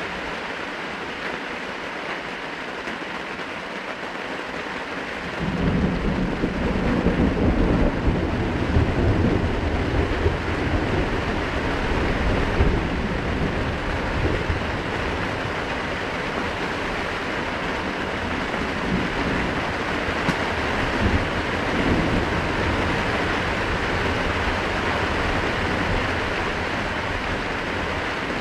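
Steady heavy rain, with a thunderclap rumbling in about five seconds in. It is loudest for several seconds, then rolls on more quietly.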